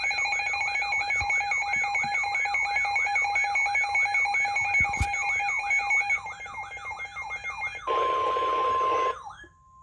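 Electronic emergency alert alarm: a warbling siren tone sweeping up and down about two and a half times a second over steady tones. About eight seconds in it gives way to a harsh, buzzing burst of about a second with a steady tone under it. The steady tone holds briefly and then cuts off.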